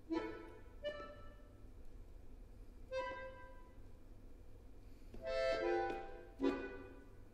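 Solo accordion playing short, sharp chords that fade away, spaced unevenly with gaps between them, and one longer chord that swells and dies about five seconds in before another sharp stab.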